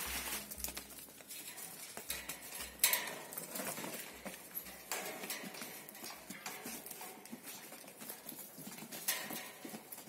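Goats moving about in a pen, their hooves clattering and shuffling irregularly on the ground, with scattered knocks. A sharper knock comes about three seconds in.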